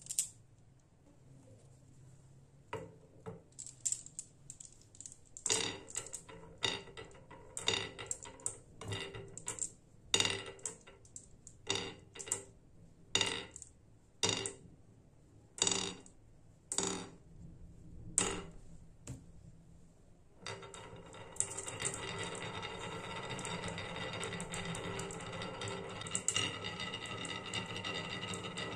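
Glass marbles set one by one into a carved wooden marble-run track, each landing with a sharp click against the wood and the other marbles. About twenty seconds in the marbles are let go and roll together down the wavy wooden groove in a steady rolling clatter.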